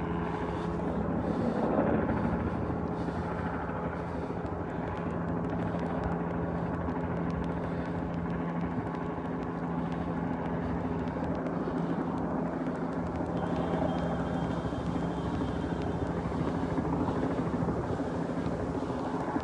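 A steady mechanical drone with a low held hum over a wash of outdoor noise, like an engine or rotor running continuously.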